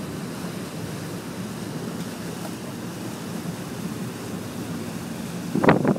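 Steady low rumble of a passenger boat under way: its engine and the rushing wake, mixed with wind on the microphone. A brief, much louder burst comes near the end.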